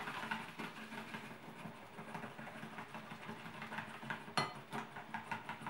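A metal utensil stirring and scraping in a porcelain bowl as flour is mixed into yeast water, making a quick run of small clicks against the bowl, with one sharper clink about four and a half seconds in.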